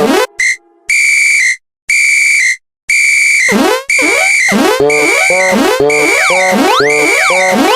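A high, whistle-like electronic tone sounding in evenly spaced toots about once a second, joined about three and a half seconds in by cartoon music with sliding, springy notes.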